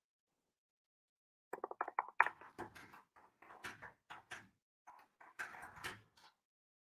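Stuttering, broken-up audio from a video call whose connection is dropping out: about a second and a half in, a quick run of clicks, then choppy fragments that come and go for about four seconds before cutting out.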